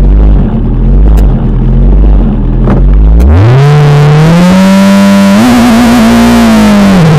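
Tatuus Formula Renault 2000's two-litre four-cylinder racing engine, heard from the onboard camera, held at raised revs on the start line. About three seconds in the revs climb sharply as the car launches and keep rising. A brief flutter follows, and near the end a dip and a fresh rise mark an upshift.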